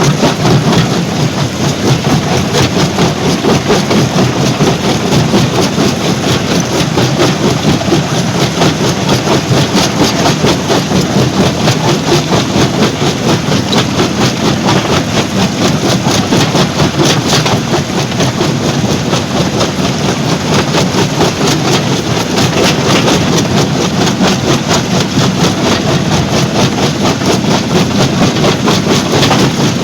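Stone crusher plant machinery running steadily: a loud, continuous mechanical clatter of rapid knocks over a low engine drone.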